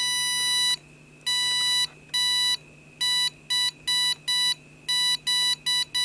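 One-transistor audio oscillator sounding a steady high beep through its crystal earpiece, keyed on and off by a magnetic reed switch as magnets are moved near it. There is one long tone that stops just under a second in, then about ten shorter beeps of uneven length, coming quicker in the second half.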